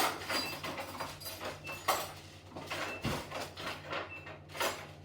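Rummaging in kitchen drawers and cupboards for a knife: irregular knocks, a drawer or cupboard door sliding and shutting, and cutlery clinking.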